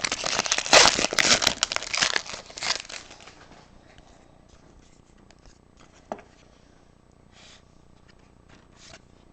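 Hockey trading-card pack wrapper being torn open and crinkled for about three seconds, then a few faint rustles and a click as the cards are handled.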